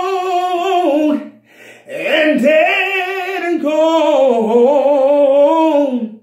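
A man singing gospel solo and unaccompanied, drawing out long runs on held notes with a wavering pitch rather than clear words. He breaks off about a second in, then sings on until just before the end.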